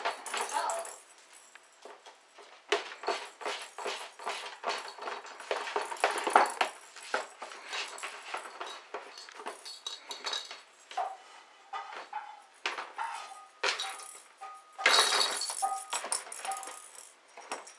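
A cat batting, clawing and pushing into an empty cardboard beer carton: irregular scratching rustles and knocks of cardboard, with music playing in the background.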